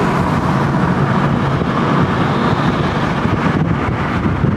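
Steady rumble of a moving car, with wind buffeting the microphone.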